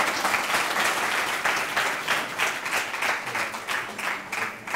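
Audience applauding: many people clapping at once in a dense, steady patter that eases off slightly near the end.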